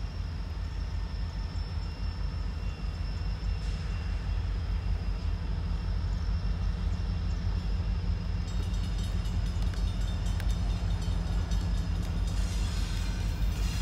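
Norfolk Southern diesel locomotive approaching slowly with a steady low engine rumble, pulling covered grain hopper cars. About two-thirds of the way through, a higher-pitched sound joins it.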